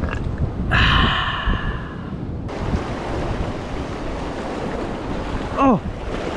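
Surf washing over a rocky shoreline, with wind buffeting the microphone. A louder hiss runs for about two seconds from about a second in, and a short sound sliding down in pitch stands out near the end.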